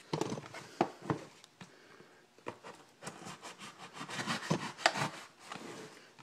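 Cardboard shipping box being handled and opened by hand: irregular scraping and rubbing with scattered light knocks and clicks.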